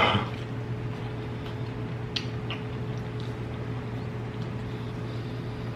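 Steady low hum with a few faint short clicks about two seconds in.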